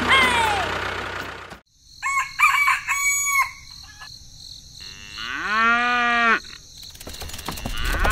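Farmyard animal sounds: a chicken clucking in short calls, then a cow mooing once in one long call about five seconds in.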